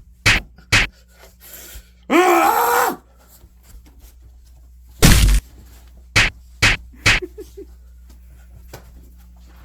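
A run of sharp smacks, two in quick succession, then a drawn-out groan about two seconds in, a heavy thump about five seconds in, and three more smacks soon after.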